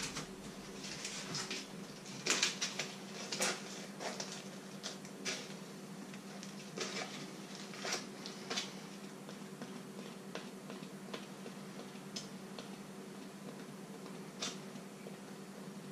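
Kitchen handling noises: scattered light clicks, taps and crinkles as a block of butter is unwrapped from its foil paper and a knife is worked on it, busiest in the first few seconds and sparser after, over a faint steady hum.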